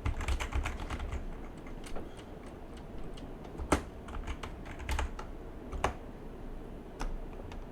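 Typing on a computer keyboard: irregular quick keystrokes, with a few harder key presses standing out.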